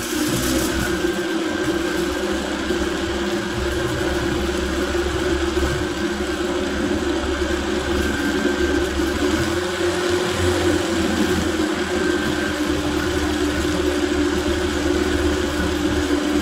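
Countertop blender motor running steadily at speed, pureeing roasted butternut squash and leeks into a thick soup.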